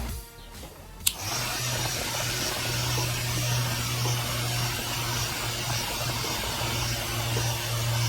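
A click about a second in, then a homemade table fan's small DC motor and blades running steadily with a low hum under an even hiss.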